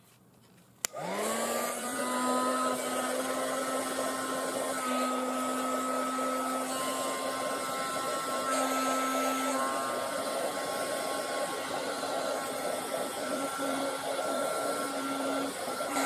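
A 300 W hot air gun switched on with a click about a second in; its fan motor spins up within a second to a steady whine over the rush of blowing air, heating heat-shrink tubing on the connector's wires.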